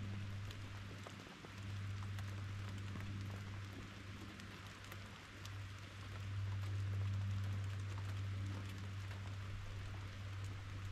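Steady rain falling, with many small separate drop ticks over an even hiss. A steady low hum runs underneath, dropping out briefly about a second in.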